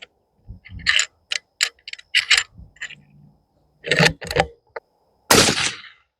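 Metallic clicks and clacks of a bolt-action rifle's bolt being worked, a dozen or so sharp strokes. About five seconds in comes one loud, noisy report of about 0.7 s, a suppressed .223 rifle shot.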